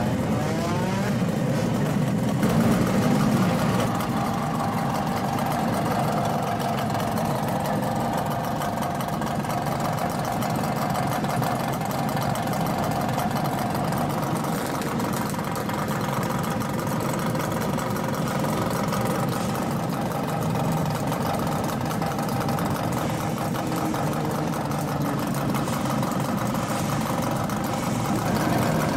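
Old motorcycle engines idling. One revs up with a rising pitch in the first second, there is a louder burst of throttle about two to four seconds in, and after that the idle runs steady.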